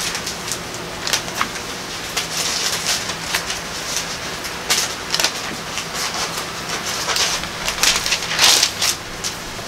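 Thin Bible pages being leafed through and rustling, a run of irregular crisp paper rustles and flicks, loudest about eight and a half seconds in.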